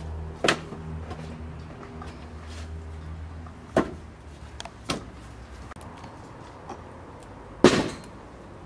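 Split firewood logs knocking together as they are picked up and stacked: a few separate sharp wooden knocks, the loudest near the end.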